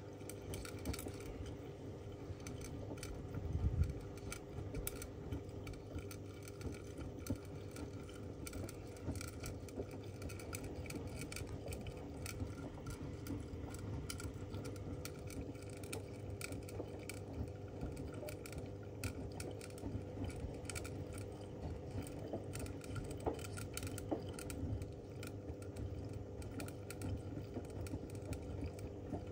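Zanussi ZWF16581W front-loading washing machine in its main wash: the drum turning with wet laundry tumbling and water sloshing and splashing, over a steady hum and frequent small clicks and clinks. There is one low thump about four seconds in.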